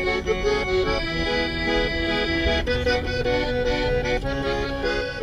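Background music led by an accordion, playing a melody of held notes that step from pitch to pitch over a busy low accompaniment.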